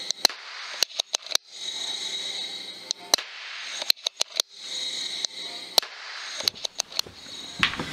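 A rapid series of sharp cracks from an FX Impact MK2 PCP air rifle firing and pellets striking the target, some in quick clusters. They come over a hiss from the scope camera's microphone that starts and stops with each short clip.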